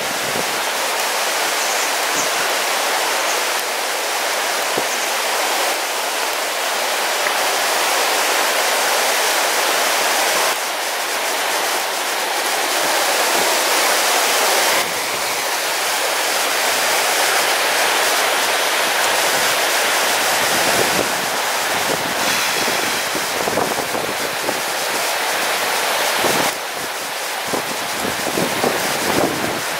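Shallow rocky river rushing over boulders, a steady loud hiss of moving water. In the second half, wind buffets the microphone now and then.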